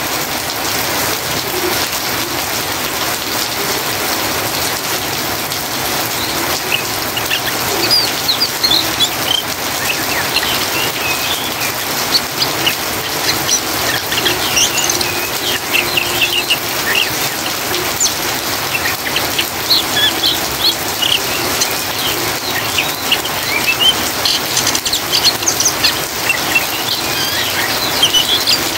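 Steady rain falling, with an oriental magpie-robin giving fast, short, high twittering chirps over it (the "ngriwik" call) from about seven seconds in.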